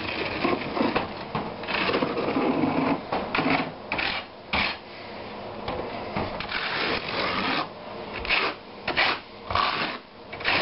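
Trowel scraping and spreading wet thin-set mortar over wire mesh on the subfloor, in repeated uneven strokes.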